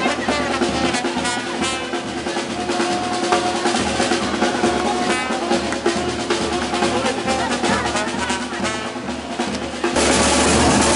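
Music with prominent snare and bass drumming, including drum rolls. About ten seconds in it changes abruptly to louder, denser music.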